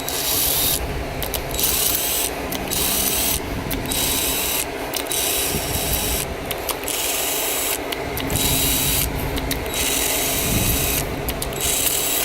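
Ratchet clicking in repeated runs with short pauses between them, as the cylinder-head bolts of a Miata BP-4W engine are undone with a 12 mm 12-point socket.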